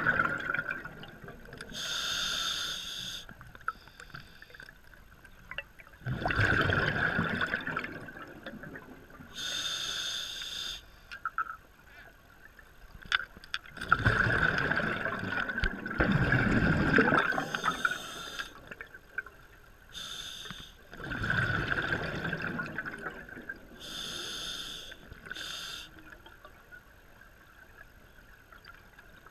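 Scuba diver breathing through a regulator underwater: short hissing inhalations alternate with longer, louder rumbling bursts of exhaled bubbles, about four slow breaths.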